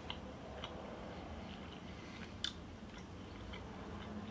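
A man chewing a mouthful of soft canned herring in sauce with his mouth closed: faint, wet, soft clicks, with one sharper click about two and a half seconds in.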